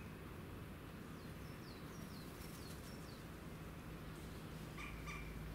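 Faint outdoor background noise with a steady low hum, and a bird singing faintly: a run of short, high, falling notes, then a brief lower call near the end.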